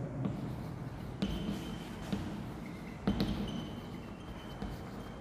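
Chalk writing on a chalkboard: faint scratching and tapping of the chalk stick on the board, with two sharper taps, one about a second in and one about three seconds in, each followed by a thin, faint high squeak.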